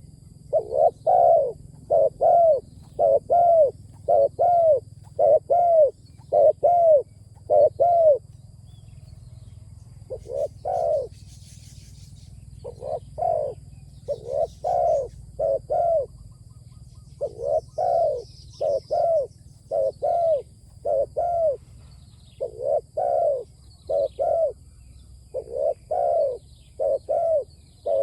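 Decoy spotted dove cooing repeatedly: a long run of short coo notes in quick groups, with a pause of about two seconds some eight seconds in. Faint high chirps of other birds sound now and then.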